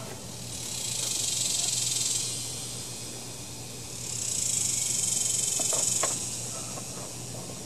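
Insect buzzing in two high, hissing swells, each about two seconds long, with a few light clicks near the end of the second.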